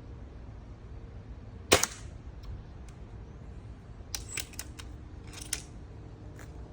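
A single shot from a GAMO .22 air rifle, a sharp crack a couple of seconds in, followed later by a quick cluster of sharp clicks and another short crack.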